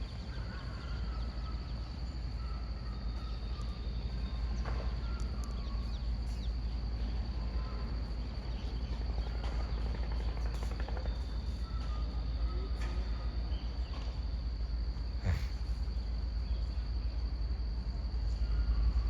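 Steady high-pitched insect drone, like crickets, over a low steady rumble, with a few faint chirps and clicks.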